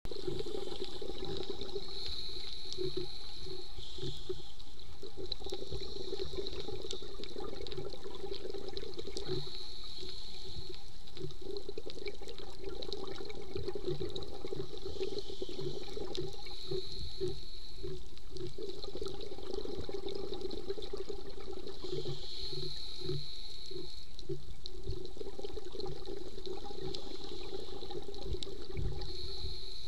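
Underwater sound on a scuba dive, heard through a camera housing: a steady muffled watery hiss, with a diver's regulator breaths and exhaled bubbles swelling and fading every few seconds.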